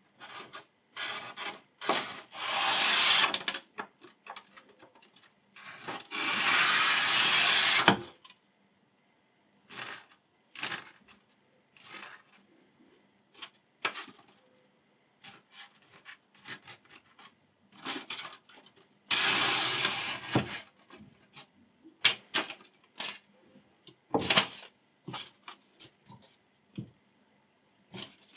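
A freshly sharpened ZDP-189 steel chef's knife slices through a standing curl of paper in a paper-cutting sharpness test: three long hissing cuts, each lasting one to two seconds. Between them come short paper rustles and light knocks as the sheet and the cut pieces are handled.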